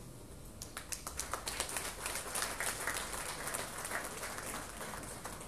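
Audience applauding. The clapping starts about half a second in and thins out near the end.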